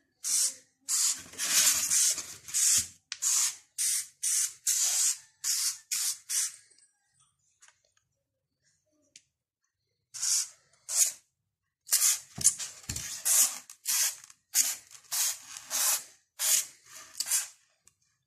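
Homemade spray bottle made from a 7up bottle spraying paint in short hissing puffs, about two a second, with a pause of a few seconds midway. There are a couple of low knocks about two-thirds of the way in.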